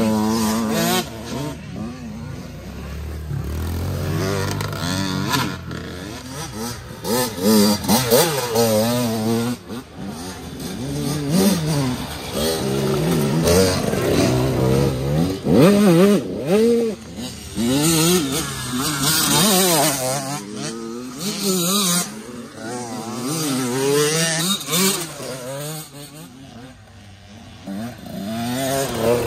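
Several small youth dirt bikes riding past one after another, their engines revving up and falling off again and again as the riders throttle through the trail, each bike swelling louder as it passes and then fading.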